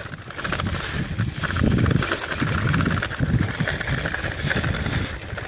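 Bicycle tyres crunching over a loose gravel track as the bike rolls along, with wind rumbling on the microphone.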